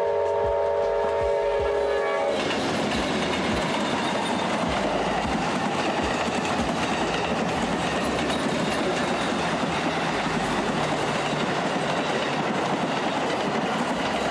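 Amtrak passenger train at a grade crossing: the locomotive horn sounds a steady chord for about two seconds. Then the GE Genesis locomotive and its passenger cars pass close at speed with a loud, even rush of wheel and rail noise.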